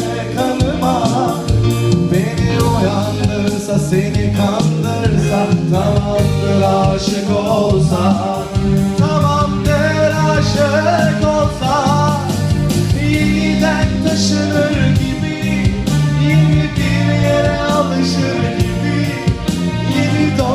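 Live band playing a song: sung melody over electric keyboard, bass guitar and a drum kit keeping a steady beat.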